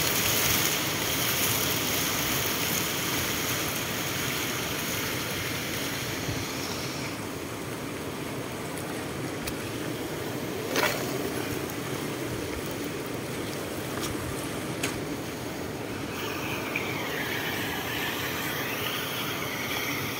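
Shallow water running steadily over a stony bed, with one sharp click about halfway through.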